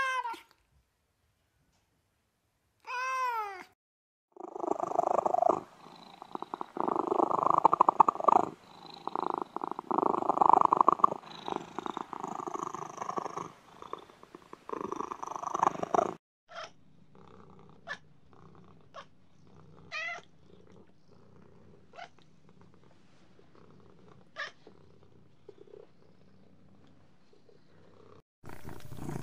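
Domestic cat sounds: a short meow about three seconds in, then a cat purring loudly and close for about twelve seconds, followed by a few faint short meows and clicks.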